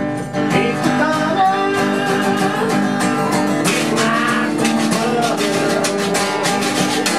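Live acoustic music: a steel-string acoustic guitar strummed with a man singing over it, and a handheld percussion instrument scraped in a quick, steady rhythm.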